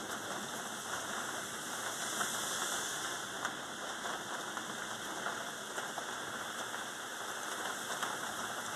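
Heavy rain falling on a wet road, a steady hiss.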